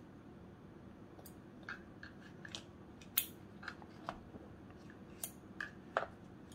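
Chopsticks clicking and tapping against a plastic lunch box and each other while picking up food: a scatter of irregular light clicks starting a couple of seconds in, the sharpest about three seconds in and near the end.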